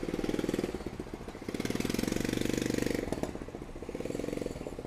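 Motorcycle engine of a sidecar cargo tricycle running as it rides slowly past, with an even pulsing beat that swells louder three times and eases off near the end.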